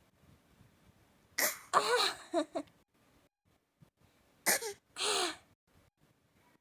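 A small child coughing in an exaggerated, put-on way: a bout of several coughs about a second and a half in, then a shorter bout about three seconds later.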